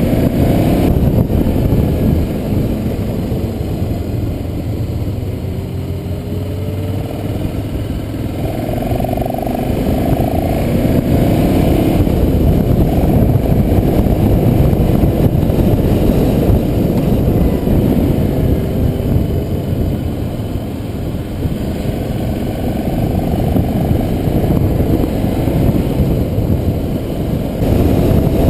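Motorcycle riding at road speed, heard from an on-board camera: a steady mix of engine and wind rushing over the microphone, with the engine note rising now and then as the throttle opens.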